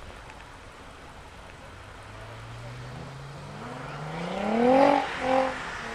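A racing car's engine accelerating hard, its pitch climbing steadily and getting louder over a few seconds until it is loudest close by near the end. It then drops briefly and picks up again in a short second burst of revs.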